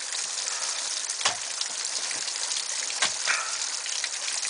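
Water pouring and spraying down a partly frozen waterfall, a steady rain-like hiss. Two sharp knocks about two seconds apart cut through it: the climber's ice axes striking the ice.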